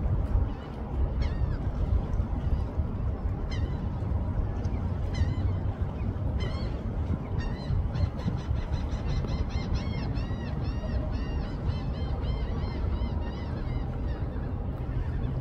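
Osprey calling in flight with high whistled chirps. A few single chirps come first, then from about eight seconds in a fast run of arched chirps, several a second, lasts about six seconds. A steady low rumble lies underneath.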